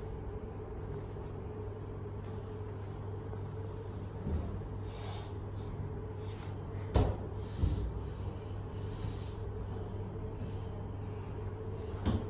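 Steady low room hum with a few short thumps and brief rubbing sounds, the loudest thump about seven seconds in.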